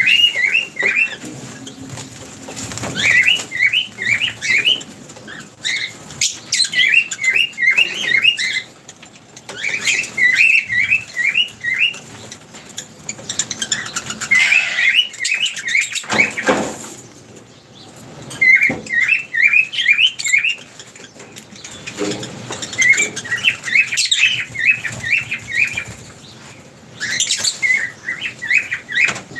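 Birds at a feeding spot chirping in short runs of five or six quick chirps, repeated every few seconds, with a louder rushing sound about halfway through.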